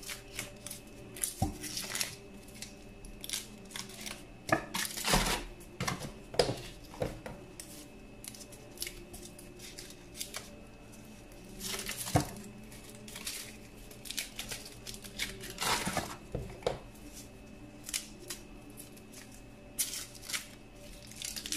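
Foil wrappers on individual processed-cheese portions being peeled and torn open by hands in plastic gloves: irregular crinkling and tearing rustles, with a few sharper clicks.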